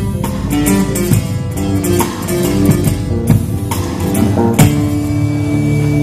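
Steel-string acoustic guitar played live: picked single notes mixed with sharp strummed chords. A hard-struck chord a little past halfway is the loudest moment and rings on afterwards.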